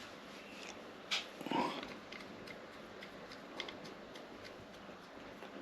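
Faint clicks and light scraping of hand tools working on threaded metal while the rusty casing-stud threads are cleaned up, with a sharper click about a second in and a brief louder scrape just after.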